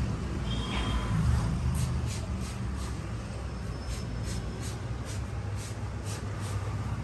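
Barber's hands working a massage, a soft rhythmic swish about three times a second, over a steady low rumble of road traffic.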